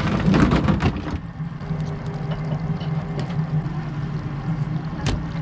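Boat's outboard motor idling with a steady low hum. For about the first second a clattering scuffle covers it as fish are handled in the fish box, and a single sharp click comes near the end.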